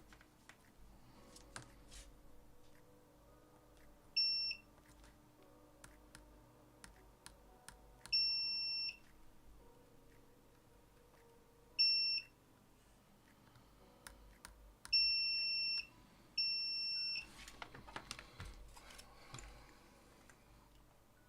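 Digital multimeter's continuity beeper sounding five times, two short beeps and three held for about a second, each beep signalling a connection below the 100-ohm threshold as the probes touch the circuit board. Light taps and clicks of the probes come between the beeps.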